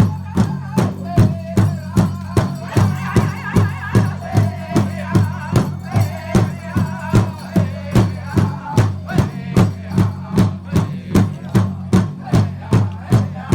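Powwow big drum beaten in a steady, even beat of about three strokes a second, with a group of singers' voices rising over it through the first half.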